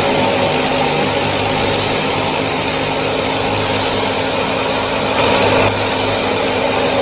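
Steady mechanical drone like a running engine, with a few constant hum tones and a slight swell about five seconds in.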